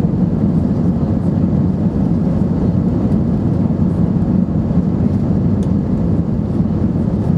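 Steady low rumble of an Airbus A320-232's IAE V2500 jet engines, heard from inside the passenger cabin.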